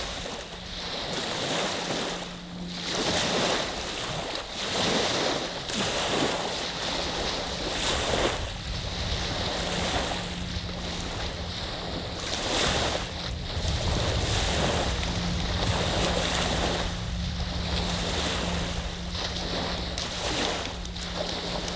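Lake waves from Saginaw Bay rolling onto the beach, one wash after another swelling and falling every second or two.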